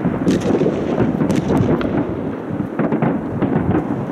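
Aerial fireworks shells bursting in a city display: a continuous rumble of overlapping explosions, with sharper bangs about once a second.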